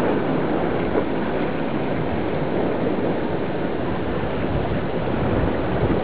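Steady rushing water noise of surf and water movement, picked up by a camera submerged in a rock pool.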